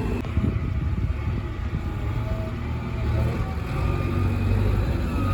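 Diesel engine of a JCB 3DX backhoe loader running steadily, easing slightly in the middle and picking up again about three seconds in.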